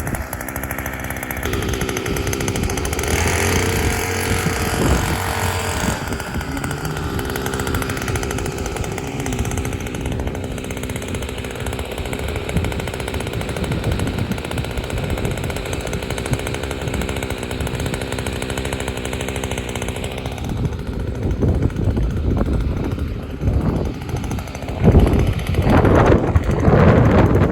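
Small engine on an engine-powered chain-pot (paper-pot) seedling transplanter running steadily under load as the machine plants, with louder clattering knocks near the end.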